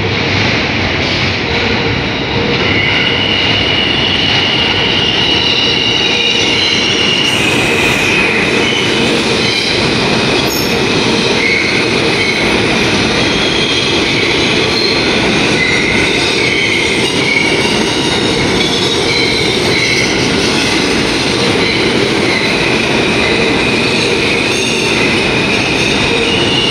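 New York City subway train running past the platform: a steady loud rumble of the cars with steel wheels squealing in high wavering tones against the rails.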